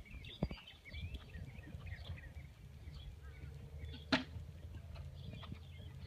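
Birds chirping and singing over a steady low wind rumble on the microphone, with one sharp knock about four seconds in.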